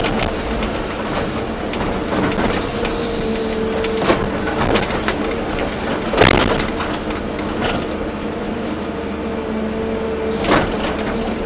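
Volvo EC240B excavator's diesel engine and hydraulics running steadily with a constant whine, broken by a few sharp knocks, the loudest about six seconds in.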